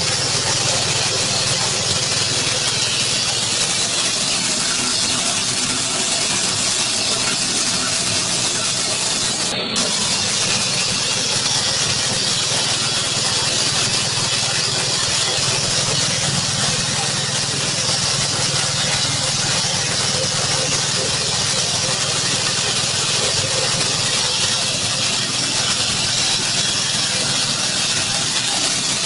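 Engine-driven corn grinding mill running steadily under load, milling dried corn kernels into fine meal. It makes a loud, even rushing noise with a steady low engine hum underneath.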